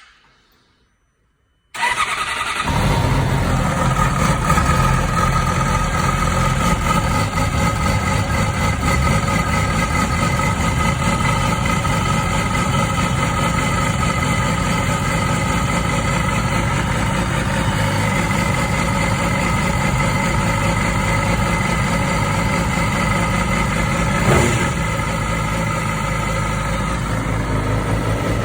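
Yamaha R6 (RJ11) inline-four motorcycle engine started cold: a short click, then it catches about two seconds in and idles steadily, with a few steady high tones over it and a brief blip near the end. This is the sawing noise that the owner hears on cold starts, which lasts 10–20 seconds; its cause is unknown.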